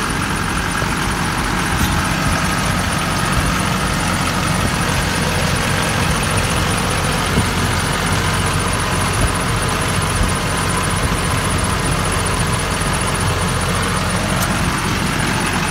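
2005 GMC C5500 truck engine idling steadily and smoothly, heard up close under the open hood.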